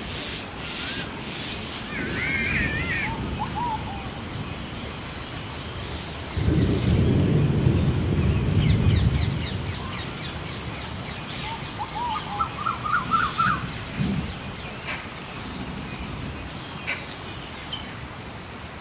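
Outdoor ambience of several birds calling: short chirps, wavering whistles and a quick rising series of notes, scattered through, over a steady thin high-pitched tone. A low rumble swells for about three seconds in the middle and is the loudest part.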